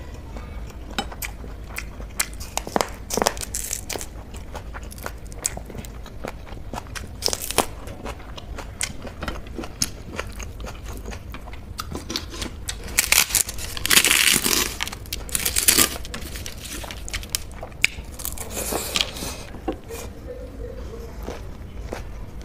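Close-up eating sounds: fingers mixing soft paneer bhurji and rice on a brass plate, with many small clicks and moist smacks from chewing. A louder crunching stretch comes about 13 to 16 seconds in.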